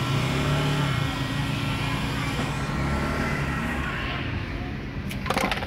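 A motor vehicle's engine running close by, a steady low hum, with a short handling rustle about five seconds in.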